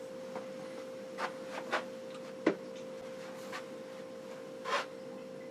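Several light clicks and knocks of small objects being handled, spaced irregularly, over a faint steady hum.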